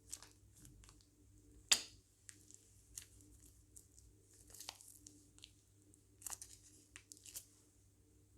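Faint, scattered crinkling and clicking from hands handling plastic piping bags and slime, with one sharper click about two seconds in.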